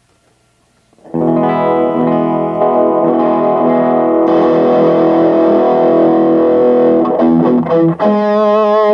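Yamaha Studio Lord SL-500 electric guitar played with distortion. About a second in, a chord is struck and rings out for several seconds, then stops, and a shorter wavering chord follows near the end.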